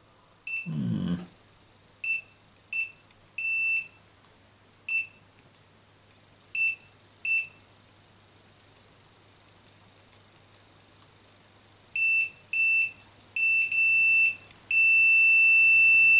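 Multimeter continuity beeper sounding in short, irregular beeps with faint clicks between them as the mouse's microswitch contacts close, then holding one steady tone near the end when the contact stays made.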